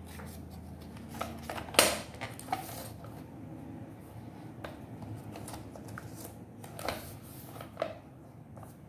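Scattered plastic clicks and knocks from a flight progress strip board as a strip is set into its clear plastic bays, with one sharp knock about two seconds in the loudest. A steady low hum runs underneath.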